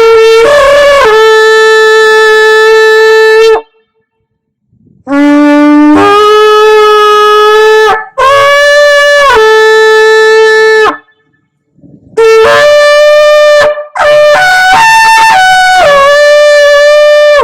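Shofar blown in a series of long, loud blasts, each held on a steady note with sudden jumps up or down in pitch, separated by short pauses. Five blasts are heard, with the longest gap about a second long after the first and the third.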